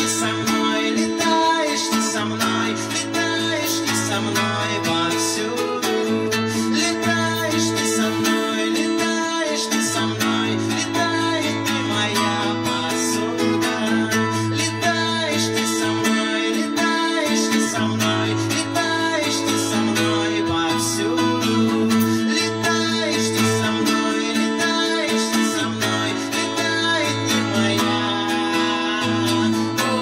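A live band playing: strummed acoustic guitar with drums and cymbals over a held low bass line.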